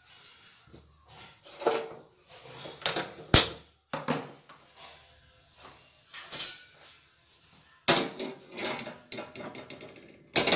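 Irregular knocks, scrapes and clatter of a clay handi pot being handled and set down on a gas stove's metal pan supports. There is one sharp click about three and a half seconds in, and heavier knocks near the end.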